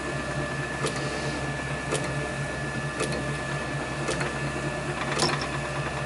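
Small vintage lathe running steadily with a low pulsing hum, and a light tick about once a second.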